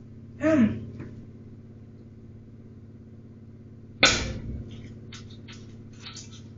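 A sharp knock about four seconds in as an egg is smashed into a frying pan on a stovetop, followed by a few softer clicks and taps. Earlier, about half a second in, a brief vocal sound that slides in pitch; a steady low hum runs underneath.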